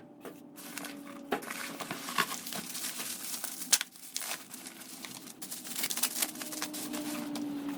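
Packing material crinkling and tearing as a motorcycle muffler is unwrapped from its parcel: a continuous crackly rustle broken by sharp clicks and snaps.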